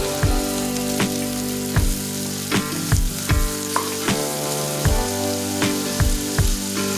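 Food sizzling as it fries in oil and butter in a pan, with some stirring. Background music with a steady drum beat about every three quarters of a second plays over it, and the beat is the loudest part.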